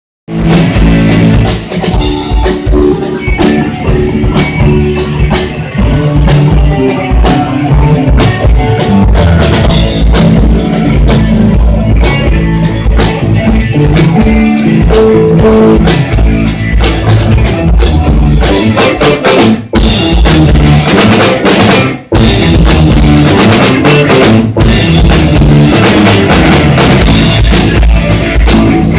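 Rock band playing live, with a driving drum kit and guitar. The music drops out briefly twice, about two-thirds of the way through.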